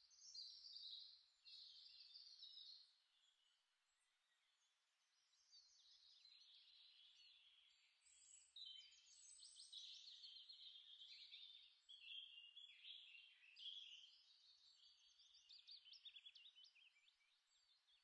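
Faint birdsong: small birds chirping and twittering in quick high-pitched runs, with a quieter lull a few seconds in.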